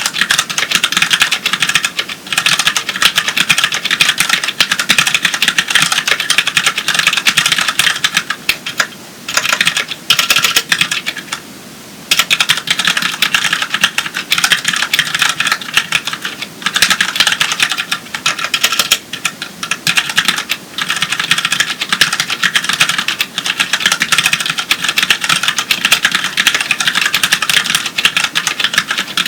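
Fast, continuous typing on a Ducky Mini keyboard with Cherry MX Brown switches: tactile, non-clicky mechanical keys clacking as they bottom out. There are brief pauses about nine and twelve seconds in.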